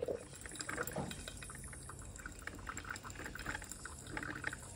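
Braun CaféHouse drip coffee maker running with water only, bubbling and sputtering with irregular small pops as its heater pushes hot water up to the filter. This empty first run wets the paper filter and warms the machine.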